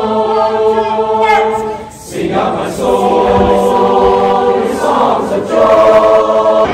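A teenage choir singing unaccompanied in parts, holding sustained chords. The sound dips briefly about two seconds in as a new phrase begins, and the loudest chord is held near the end.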